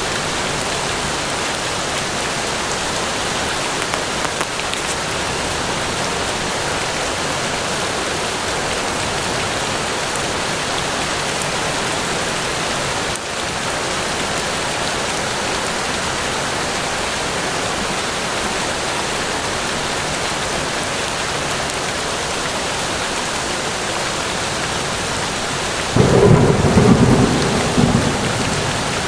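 Steady rain falling. Near the end comes a sudden rumble of thunder that fades over two or three seconds.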